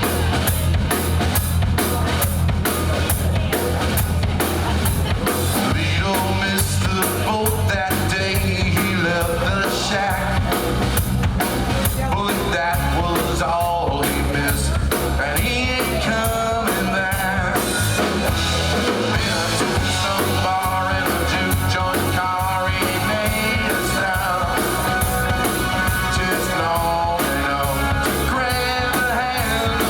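Rock song with drums, guitar and singing, playing steadily.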